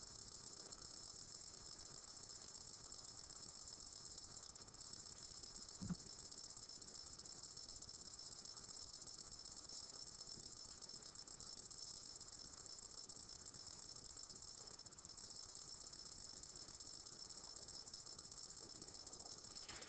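Near silence: a faint steady hiss of room tone, with one brief soft knock about six seconds in.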